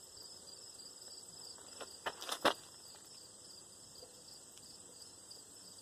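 Crickets chirping steadily, with a few short clicks or knocks about two seconds in.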